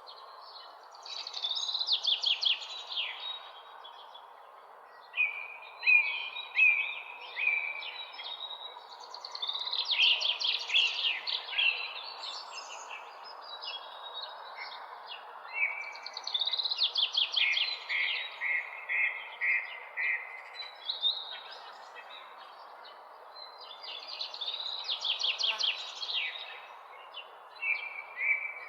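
A songbird singing the same phrase again and again, about every six to seven seconds: a fast run of rapid notes that falls in pitch, then a short string of lower chirps. Under it runs a steady background hiss.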